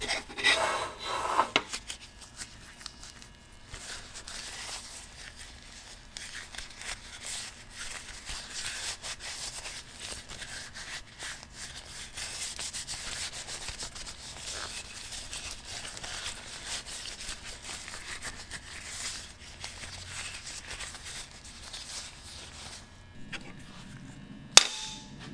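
Gloved hands rubbing boiled linseed oil into a wooden saw handle: an uneven, continuous rubbing that swells and fades with the strokes. A few knocks come in the first couple of seconds as the handle is picked up, and one sharp knock near the end as it is set down on the metal bench.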